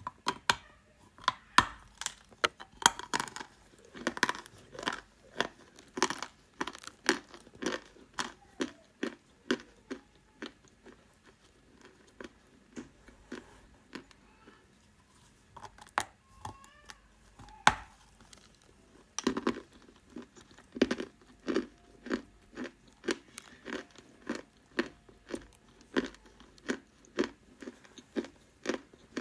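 Close-miked mouth crunching and chewing of dry white Turkestan clay: sharp, crisp crunches come a few a second. They thin out to sparse soft chewing for a few seconds in the middle, then pick up again.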